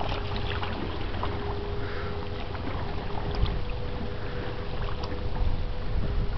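Lake freighter Algoma Buffalo passing, its engines giving a steady hum under an uneven low rumble.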